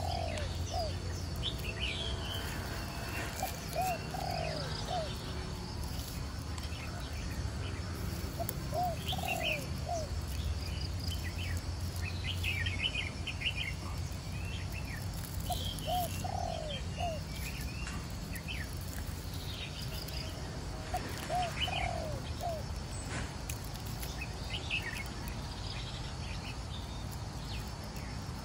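Birds calling outdoors: one bird gives short phrases of three or four rising notes every five seconds or so, and higher chirps from other birds come in between.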